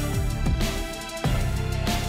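Background music: sustained instrumental notes over a heavy bass, with a drum hit about half a second in and again near the end.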